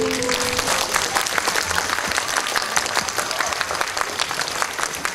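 Audience applauding with dense, steady clapping. The last held note of a piece of music fades out in the first second.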